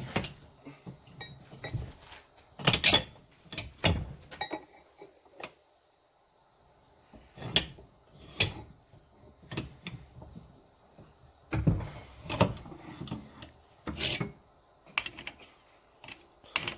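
Steel pieces being handled on a metal work surface: irregular clanks, knocks and scrapes of metal on metal, with a short lull partway through.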